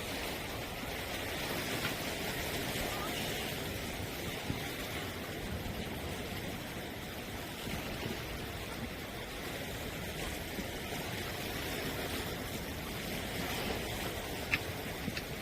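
Steady outdoor sea ambience: waves washing against shore rocks, with wind noise and a few faint clicks.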